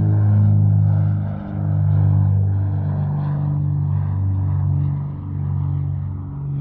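Propeller airplane engine droning at a steady low pitch, wavering in loudness.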